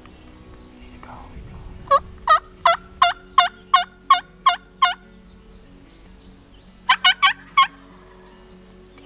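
Wild turkey calling: a run of about nine evenly spaced yelping notes, roughly three a second, then about seven seconds in a quicker burst of four notes.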